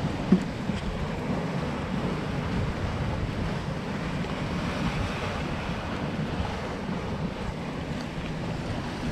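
Sea waves breaking on a rocky shore, with wind buffeting the microphone. A single short knock sounds just after the start.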